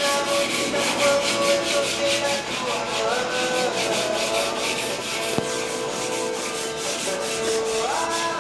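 Sandpaper rubbed by hand over a painted masonry wall in quick, even back-and-forth strokes, scuffing old paint and filler to prepare it for repainting.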